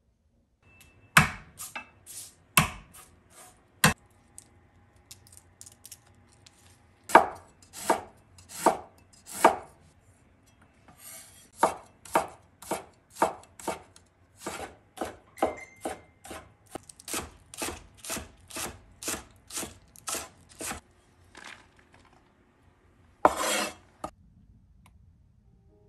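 Kitchen knife chopping on a cutting board: a few separate strokes at first, then a steady run of about two strokes a second, with one longer, noisier stroke near the end.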